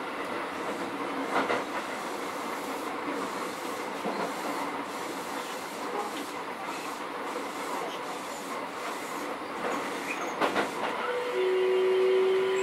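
Keio 7000 series electric train heard from inside the car while running, with a steady rumble of wheels on rail and a few clacks. About eleven seconds in, a steady whine starts.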